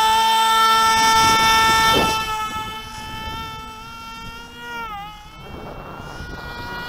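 Electric motor and propeller of a foam-board RC plane with the prop set into the wing, running at full throttle with a loud, steady, high whine through the hand launch. About five seconds in the pitch dips and the sound drops away to a faint tone under wind noise on the microphone.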